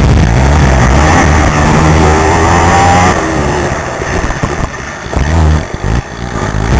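Racing quad's engine heard from the rider's helmet, pulling hard with its pitch climbing for about three seconds, then backing off and coming back on the throttle in short bursts.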